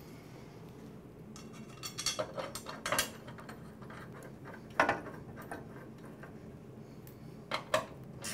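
A steel push-mower blade and its bolt clink and knock against the mower as the blade is fitted back on, in scattered light clatter, one sharp knock about five seconds in and a couple of clicks near the end.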